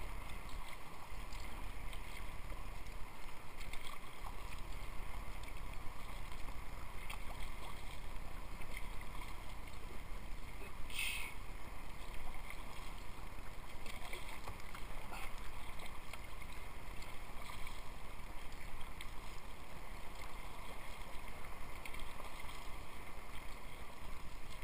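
Sea kayak being paddled: paddle blades dipping into the sea and water washing along the hull, with a steady low rumble underneath. A brief sharper splash about eleven seconds in.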